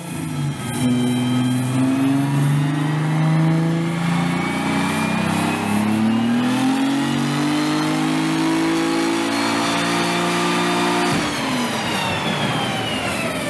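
Car engine at full throttle on a chassis dynamometer, its pitch climbing steadily through the pull. About eleven seconds in, the sound drops abruptly and the pitch falls away as the engine lets go, with fire out of the exhaust: the engine has blown.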